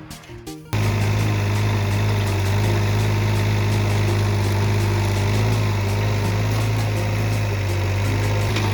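Excavator's engine running steadily with a deep, even hum, cutting in abruptly just under a second in.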